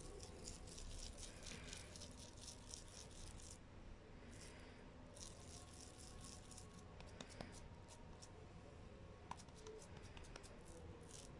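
Faint, soft crackling of hands squeezing and pressing a moist minced chicken-and-chana-dal shami kabab mixture, in runs of quick ticks with short pauses between them.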